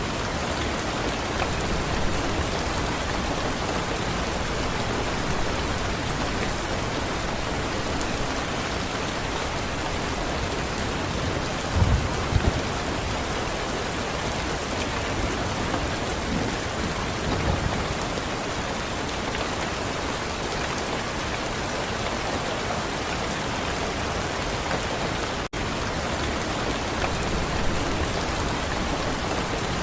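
Steady, heavy rain falling. It is a dense, even hiss, with a few brief low thumps about twelve and seventeen seconds in. There is a split-second drop-out shortly before the end.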